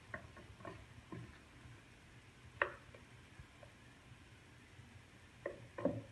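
Light clicks and taps as hands fold and press paratha dough over potato filling on a round rolling board: a few small taps at first, the sharpest about two and a half seconds in, and two more close together near the end.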